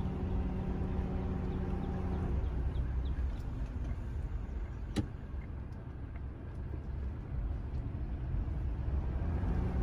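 Car cabin noise while driving slowly: a steady low rumble of the car and tyres, with a low hum that drops away about two seconds in. A single sharp click about five seconds in.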